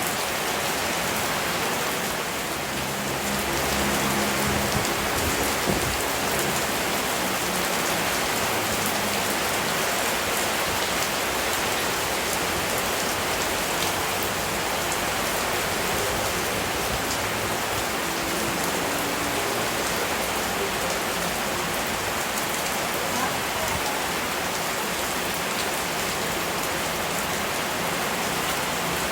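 Steady rain falling and pattering on surfaces, an even, unbroken hiss with no let-up.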